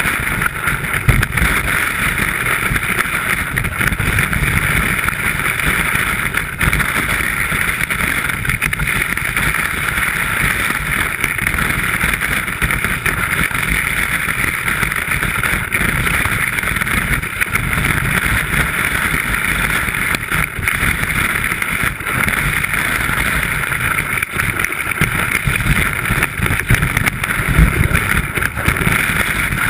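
Steady rushing hiss of skis running down through fresh snow, picked up by a camera mounted on the ski itself, under an uneven low rumble of wind on the microphone.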